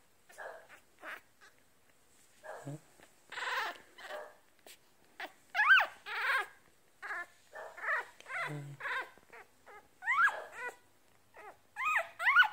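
One-week-old Yorkshire Terrier puppies squeaking and whimpering as they are handled. They give many short, high calls that rise and fall in pitch, coming thicker and louder about six seconds in and again near the end.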